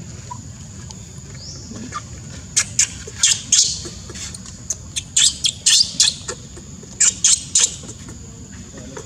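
Newborn baby monkey's shrill distress squeals, short high cries in quick clusters starting about two and a half seconds in and recurring to the end.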